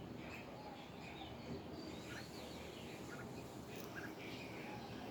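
A few faint, short bird chirps scattered over steady background noise.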